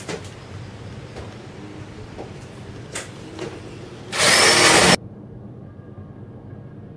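Ridgid cordless drill running in one loud burst of just under a second, about four seconds in, as the bit bores into the trailer's wafer-board wall, then cutting off sharply. A few faint clicks and handling knocks come before it.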